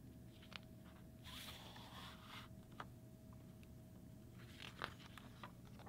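Faint handling of a paper picture book as it is opened and its pages turned: a soft paper swish a little over a second in, with light taps and rustles of paper and fingers after it.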